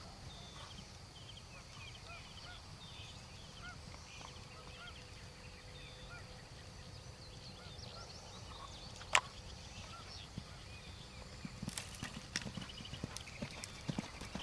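Birds calling in the background with many short chirps, a single sharp knock about nine seconds in, and a pony's hoofbeats on arena sand coming in near the end.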